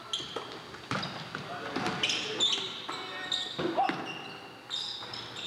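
Basketball bouncing on a gym floor in game play, several sharp bounces, under crowd voices and shouts.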